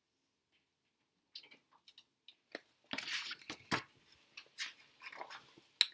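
Handling of a large hardcover picture book: paper rustling with several sharp knocks and clicks, starting about a second and a half in and loudest around the middle.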